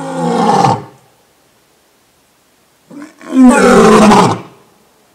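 Male lion roaring: a deep roar that dies away about a second in, then, after a pause of about two seconds, a short grunt and a louder roar lasting about a second.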